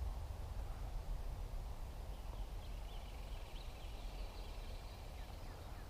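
Quiet riverside ambience: a steady low rumble, with a bird chirping faintly in a quick run of short high chirps through the middle.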